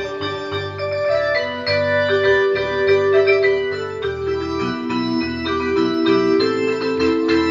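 Electronic keyboard set to an organ sound playing a slow hymn in held chords, the notes changing in steps.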